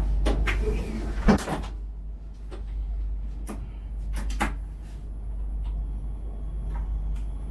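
Electric multiple unit standing at a station platform: a steady low hum from its on-board equipment, with a series of sharp clicks and knocks, the loudest a little over a second in.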